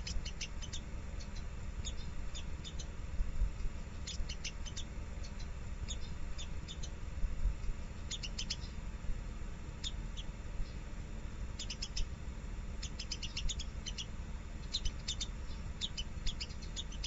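Squirrel chattering: short runs of rapid, sharp, high clicking calls, coming in bursts every second or two, over a steady low rumble.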